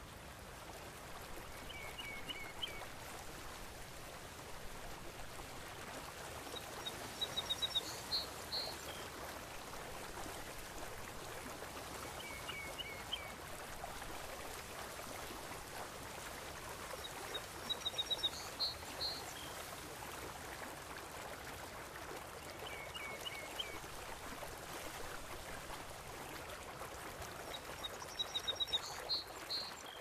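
A steady rush of water with groups of short, high bird chirps. Two chirp phrases alternate about every five seconds, each repeating identically, like a looped nature-ambience track.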